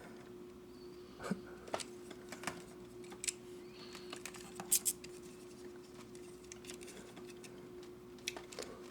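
Small plastic model-kit parts clicking and tapping now and then as they are handled and fitted together, the sharpest pair of clicks just under five seconds in, over a faint steady hum.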